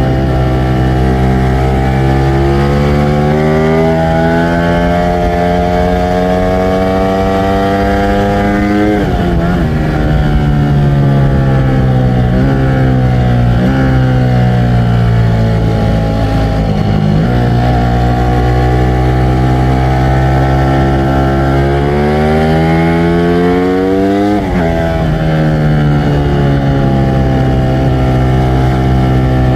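Ducati Streetfighter V4 S's Desmosedici Stradale V4 engine running under way. Its pitch climbs steadily, drops sharply about nine seconds in and sinks slowly, then climbs again and drops sharply once more near the end.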